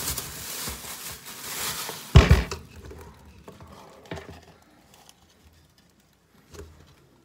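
Handling noises: a rustling hiss, then one loud thud about two seconds in, followed by a few faint knocks.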